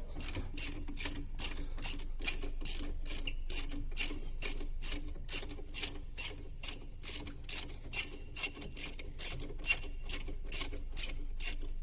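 Hand ratchet wrench clicking steadily, about three to four clicks a second, as a brake caliper bolt is run out.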